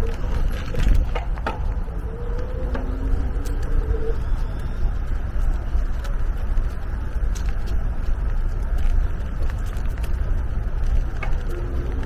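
Outdoor park ambience: a steady low rumble with faint distant voices about two seconds in and again near the end, and occasional light clicks.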